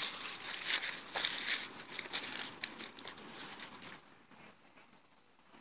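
Moorhens pecking and tearing at grass right beside the microphone: a dense run of crackling, rustling clicks that stops suddenly about four seconds in.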